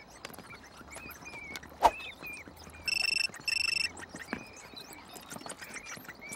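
A telephone giving one double ring about three seconds in: two short, steady, high-pitched bursts with a brief gap between them. Small high chirps run through the whole stretch, and a single sharp knock comes a little before the ring.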